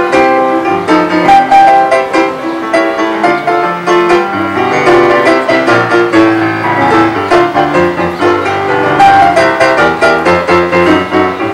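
Digital piano played with both hands: a quick, continuous flow of chords and running notes.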